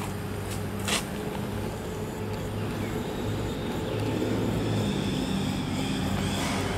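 A motor running nearby with a steady low hum, getting a little louder about four seconds in; a single sharp click about a second in.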